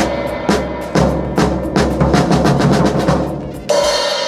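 Drum kit being played: a run of drum strokes a few times a second over a low bass-drum thud, stopping shortly before the end.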